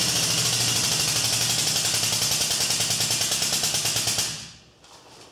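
Air-over-hydraulic pump driving the body-pulling ram, running with a loud hiss and a fast, even pulsing as it pulls the damaged strut tower out; it stops a little over four seconds in.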